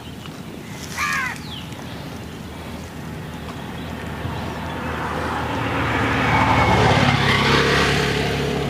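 A motor engine passing, its steady hum growing louder to a peak about seven seconds in and then easing off, with a short bird call about a second in.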